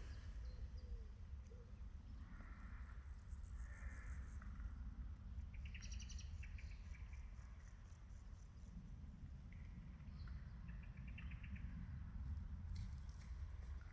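Faint outdoor calls: a few short bird-like chirps and short rapid trains of high insect chirping, over a steady low rumble.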